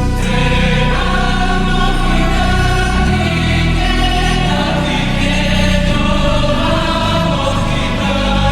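Background music with a choir singing over a sustained bass.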